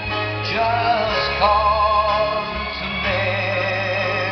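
A slow ballad played back from a vinyl record on the Technics MCS 6502 turntable: a man sings long held notes with vibrato over a sustained, organ-like backing.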